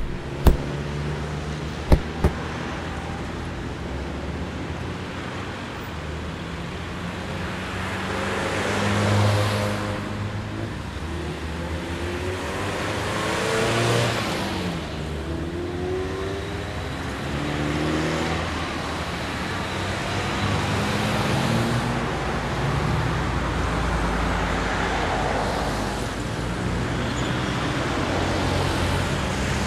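Street traffic ambience: a steady road-noise rumble with cars passing every few seconds. A few sharp clicks come about half a second and two seconds in.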